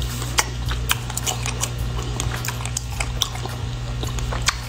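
A man chewing a mouthful of food close to the microphone, with irregular clicks and smacks of the mouth over a steady low hum.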